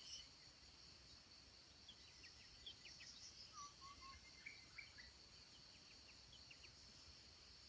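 Tropical forest insects making a faint, steady high-pitched drone. A louder pulsing insect trill cuts off just as it begins. Scattered short bird chirps come between about two and six seconds in.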